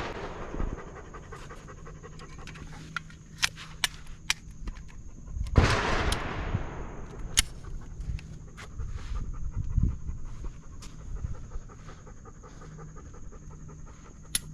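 A dog panting steadily, with one loud gunshot about five and a half seconds in that rings on for about a second, and several shorter, quieter cracks of other shots.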